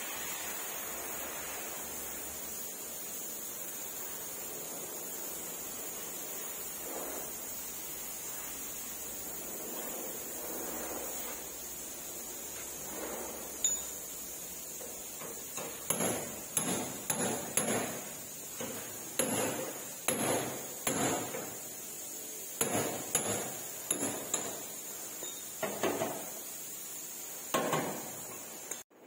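Hammer blows on metal: after a steady hiss, a single strike about halfway through, then an irregular run of knocks at roughly one to two a second, each with a short high metallic ring.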